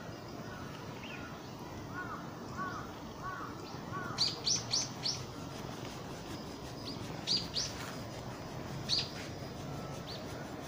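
Small birds calling: a run of short arching chirps, then sharp high calls in quick runs of two to four, about four seconds in and again around seven and nine seconds.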